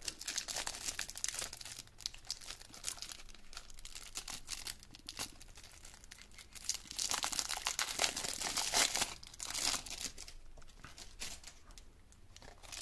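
Thin plastic wrapping on a Yu-Gi-Oh! structure deck's cards crinkling and tearing as it is worked off by hand, in irregular bouts, loudest about a second in and again from about seven to nine seconds.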